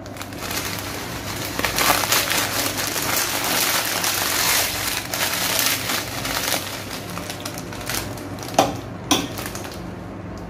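Plastic packet of dry vermicelli crinkling as it is squeezed and shaken out over a pot of milk, the brittle strands crackling as they break. Two sharp knocks come near the end.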